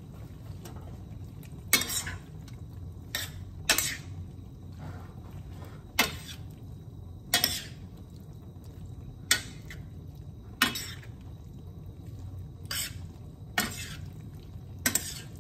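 A metal utensil stirring pasta in a stainless-steel skillet, clinking sharply against the pan about ten times at uneven intervals, over a steady low hum.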